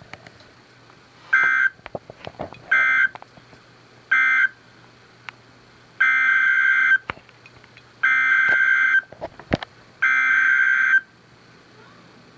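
Emergency Alert System (SAME) digital data bursts from a weather radio broadcast. Three short bursts come first, the end-of-message code that closes a tornado warning. After a pause come three longer bursts of about a second each, the header of the next alert, over a faint hum.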